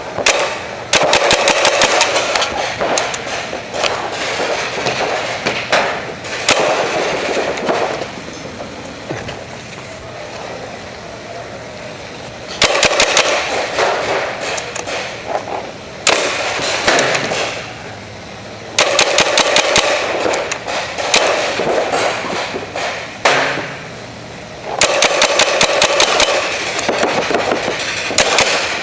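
Paintball markers firing reballs in rapid strings of shots: about five bursts of quick, evenly spaced pops, each one to three seconds long, with quieter gaps between.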